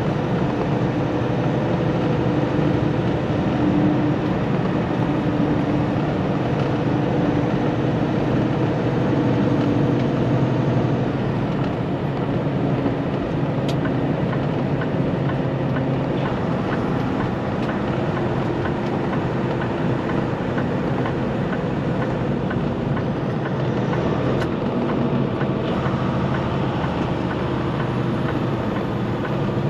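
Semi truck's diesel engine running under way with road noise. The engine tone shifts in pitch a few times.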